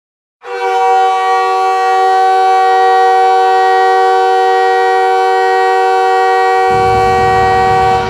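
Montreal Canadiens' goal horn sounding one long, steady blast, starting about half a second in.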